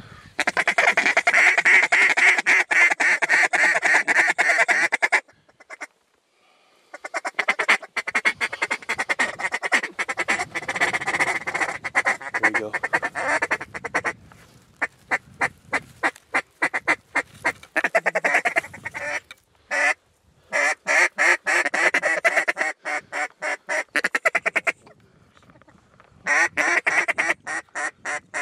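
Mallard duck call blown hard and close in long runs of fast quacks and chuckles. The runs break off abruptly into short pauses a few times: about five seconds in, near the two-thirds mark, and shortly before the end.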